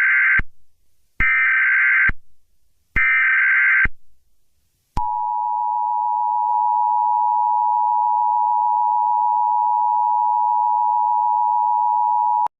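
Emergency Alert System header data tones: three short screeching bursts, the first already sounding, then the EAS attention signal. The attention signal is a steady two-tone blare that starts about five seconds in and holds for about seven and a half seconds before cutting off sharply.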